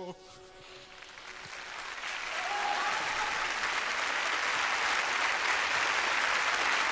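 Opera house audience applauding. It starts faintly right after the last held note cuts off, swells over the first few seconds and then holds as full, steady applause.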